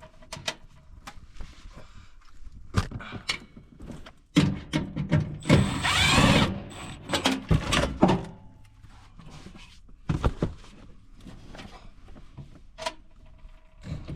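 Cordless drill with an extension bit running in short bursts, backing out the screws that hold a furnace inducer motor, among clicks and knocks of metal parts being handled. The loudest drilling comes about four to eight seconds in.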